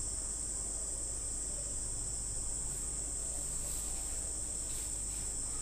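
A steady high-pitched whine over a faint low hum, with a few faint soft scrapes in the second half as a wooden spatula pushes grated paneer into the pan.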